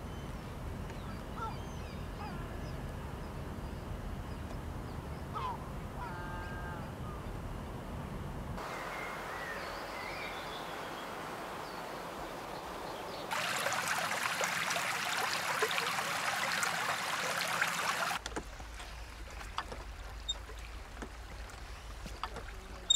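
Outdoor location sound in several cuts. Small birds chirp over a low hum, then over near-quiet. About thirteen seconds in, a loud steady rush of running water from a stream takes over. About eighteen seconds in it cuts off to a quieter stretch with a few light ticks and taps.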